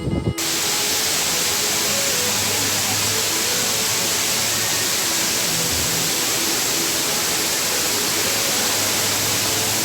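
Steady rush of ocean surf on the shore, an even hiss-like noise with no breaks or swells.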